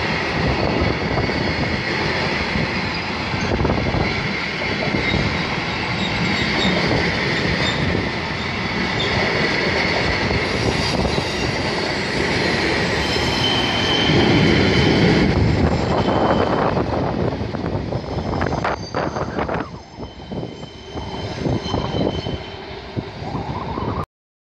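Freight train of covered Ferrywagon bogie wagons rolling past close by: a steady rumble of wheels on rail with a thin, high wheel squeal over it. The sound fades after about sixteen seconds as the last wagons go by.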